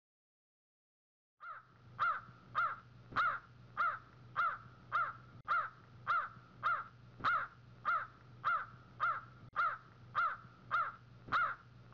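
A crow-family bird calling over and over, a short call about every half second, starting about a second and a half in.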